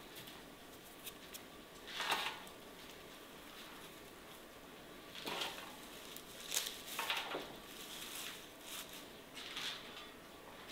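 Several brief, soft rustles of fresh dill and cilantro sprigs being handled and laid onto the chopped vegetables in the pot.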